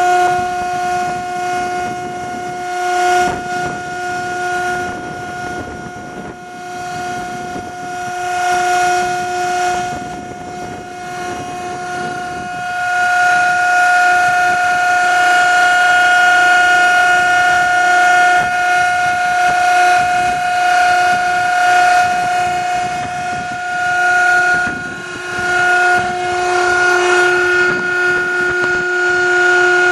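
Hydraulic power pack of a Load King 7230 vertical baler running: a steady pitched whine from the electric motor and pump, swelling and easing in strength as it works.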